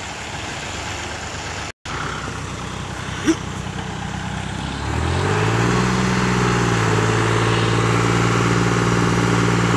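Tractor diesel engines running under load in a tug-of-war pull. About five seconds in, an engine speeds up and holds a steady high note, and there is one short knock a little before that.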